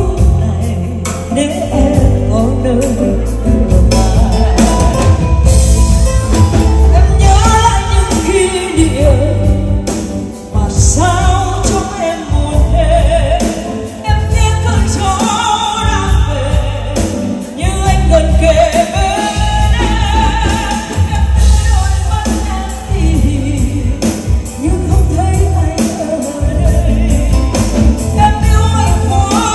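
A Vietnamese pop ballad sung over a backing track with a heavy bass beat.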